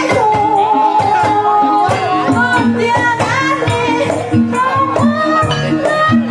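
Loud music: a melody line that bends and holds notes, likely a singing voice, over a steady repeating percussion beat.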